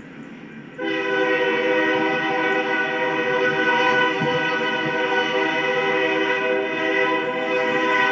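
Train horn sounding one long, unbroken blast that starts about a second in, several notes sounding together as a chord.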